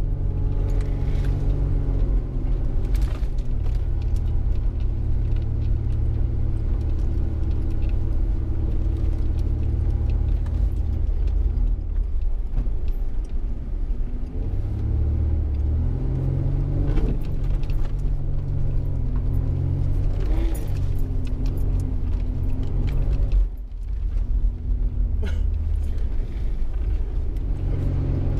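Vehicle engine running with a heavy low rumble while driving off-road, the engine note dropping and rising several times, with a few light knocks and rattles.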